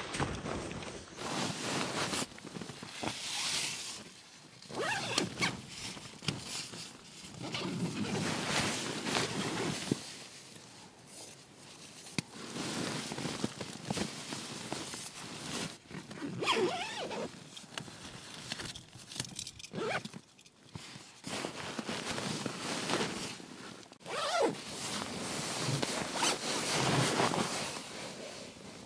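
Zippers being pulled and the nylon of a Naturehike VIK 1 backpacking tent, a sleeping bag and an inflatable sleeping pad rustling and crinkling in irregular bursts as a person moves about settling in to sleep.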